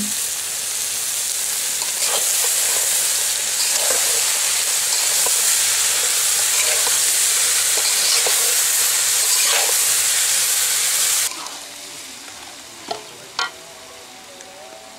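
Potato sticks frying in oil in a large aluminium wok, sizzling loudly while a metal spatula stirs and scrapes through them every second or two. About eleven seconds in the sizzle drops suddenly to a fainter hiss, with a couple of sharp scrapes after.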